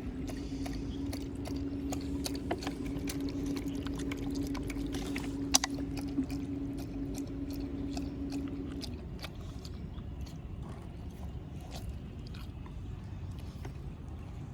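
Dogs chewing food, with many scattered short crunching clicks and one sharper click midway. A steady low hum runs underneath and stops about nine seconds in.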